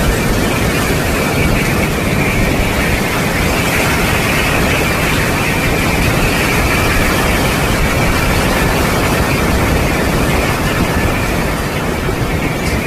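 Strong storm wind blowing hard, a loud steady rush with a high whistling note running through it.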